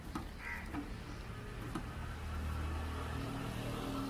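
A motor vehicle's engine hums low and steady, growing louder about two to three seconds in, with a few faint clicks and a short high chirp about half a second in.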